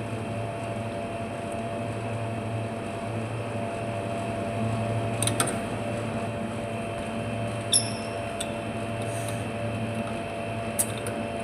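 Steady electric hum of a running refrigerator compressor, with a few light metallic clicks and a short clink about eight seconds in.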